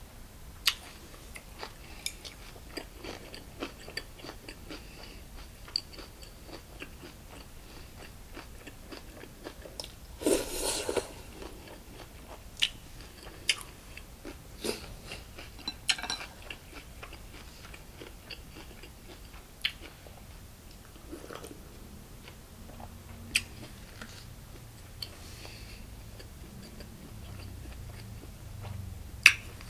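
Close-up chewing and wet mouth sounds of a person eating a Korean bossam meal, with many small clicks and smacks. About ten seconds in there is a louder, noisy burst lasting about a second, and a sharp click comes near the end.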